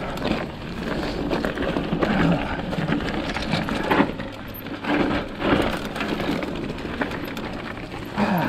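Mountain bike rattling over a rough, rocky dirt trail on a fast descent: tyres crunching on loose ground with frequent knocks and clatter from the bike over bumps.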